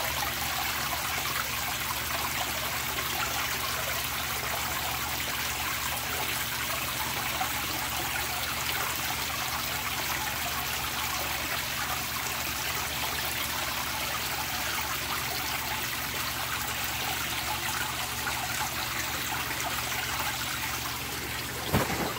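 Water pouring into a koi tank and splashing steadily on the surface. A brief knock just before the end.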